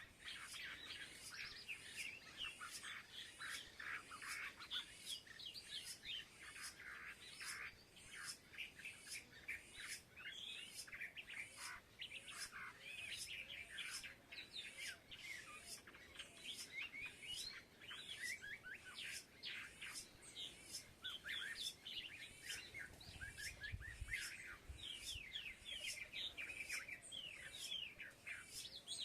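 A group of small birds chirping continuously in many short, overlapping calls, with sharp clicks about twice a second throughout.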